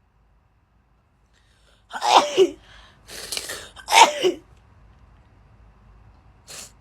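A girl sneezing twice, about two seconds apart, with a sharp breath between the sneezes and a short sniff near the end. It is part of a sneezing fit set off by a nasal swab covid test.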